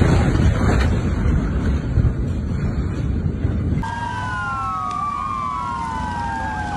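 A loud, rough rumbling noise, then about four seconds in several emergency vehicle sirens wailing at once, their pitches sweeping up and down and overlapping.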